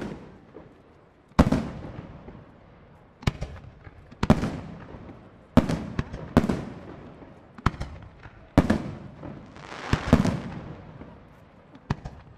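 Professional aerial fireworks shells, up to 4-inch, bursting one after another: about ten sharp reports at intervals of one to two seconds, each trailing off in a rolling echo. A brief hiss comes with the bursts about ten seconds in.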